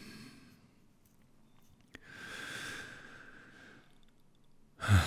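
A man breathing close to the microphone: a long breathy exhale through the nose about two seconds in, then a short, louder voiced sigh right at the end.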